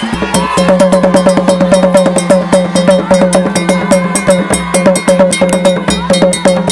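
Traditional Mozambican batuque drums played in a fast, even rhythm of several strokes a second, each stroke with a short drop in pitch.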